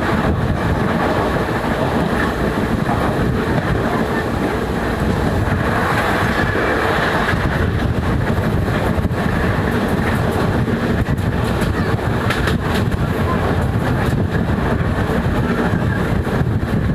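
Track-construction rail engine running steadily on the track, a heavy continuous rumble with light clatter throughout.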